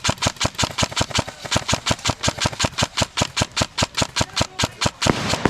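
An airsoft rifle firing on full auto in one long, even burst of about seven shots a second. A rushing hiss takes over near the end.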